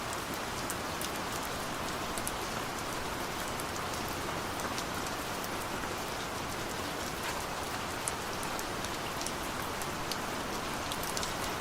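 Steady rainfall: an even hiss with many scattered, crisp drop ticks.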